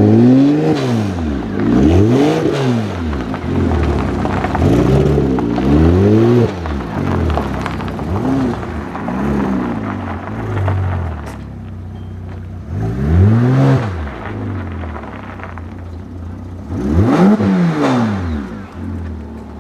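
Flat-six engine of a RUF StudioTorino RK Spyder, a tuned Porsche Boxster, revved repeatedly while standing still. About eight quick blips climb and fall back to a steady idle, with a longer pause at idle midway through.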